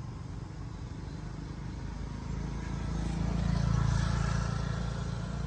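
A motor vehicle passing, a low engine rumble that swells about halfway through and then eases off.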